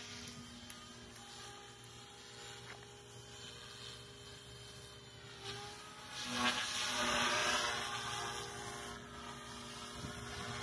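Electric Goblin 380 RC helicopter in flight: a steady whine of its motor and main rotor, getting louder and bending in pitch from about six seconds in as it manoeuvres closer.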